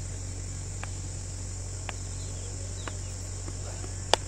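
Steady high-pitched chirring of night insects over a low steady hum, with faint ticks about once a second and a single sharp crack near the end.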